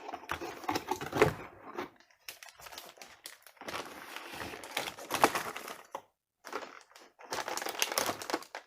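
Cardboard box and packaging being handled while a motherboard is unpacked: irregular rustling and clicking in several bursts with short pauses.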